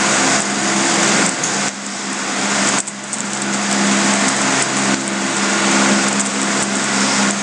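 Steady loud hum with a dense hiss, like a motor running close by, dipping briefly twice.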